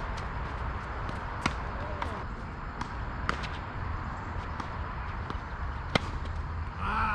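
Tennis rally on a hard court: sharp pops of rackets striking the ball and the ball bouncing, about six in all. The loudest is the near player's forehand about six seconds in.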